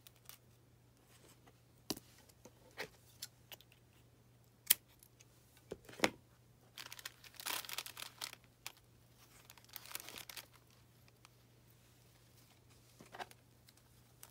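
Hands working with craft supplies on a tabletop: scattered light taps and knocks. Then, about halfway through, a couple of seconds of plastic crinkling and rustling as a plastic bag of feathers is handled.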